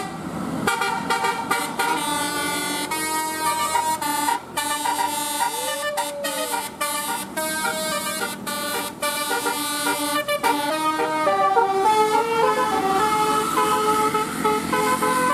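Bus 'telolet' multi-tone horn playing a tune: a run of stepped horn notes changing pitch every fraction of a second, with one brief rising-then-falling glide about six seconds in.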